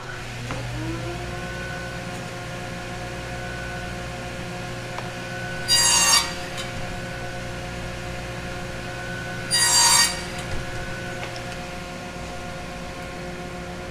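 Craftsman 10-inch radial arm saw spinning up and running steadily, its blade cutting through a strip of wood twice, about four seconds apart.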